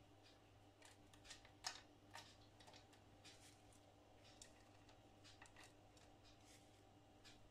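Near silence with a scatter of faint light ticks and clicks, one a little louder about a second and a half in: slivered almonds being dropped by hand onto batter in a metal muffin tin.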